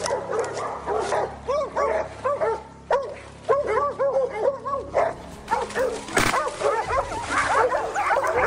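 A pack of hunting dogs barking and yipping together, short overlapping barks several times a second, as they bay a wild hog.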